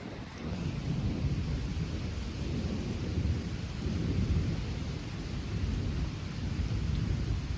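Long rolling thunder, a low rumble that swells and fades in waves without a sharp crack, over light rain.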